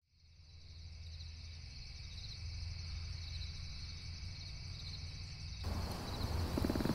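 Night ambience of crickets chirping steadily over a low hum, fading in from silence at the start. A little before the end the background turns louder and hissier.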